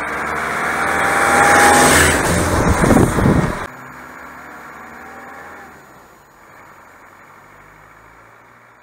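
A Land Rover driving along a gravel road. The engine and tyres on gravel grow loud as it comes close about two to three seconds in. The sound then cuts off abruptly and is replaced by the vehicle running much more faintly in the distance.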